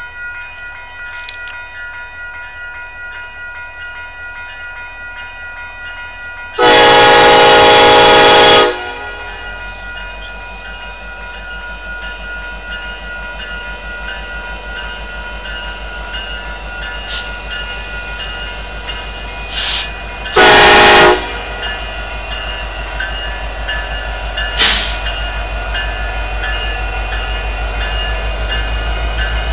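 Union Pacific diesel locomotive's horn blowing one long blast of about two seconds some seven seconds in, then a short blast around twenty seconds in. Underneath, the crossing warning bell rings steadily and the locomotive's low engine rumble grows louder as it draws near.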